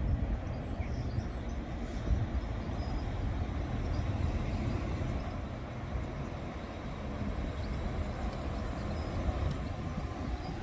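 A train running past at the platform, a steady low rumble without a horn.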